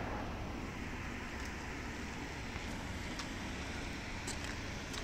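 Steady outdoor background noise of distant road traffic, with a few faint ticks.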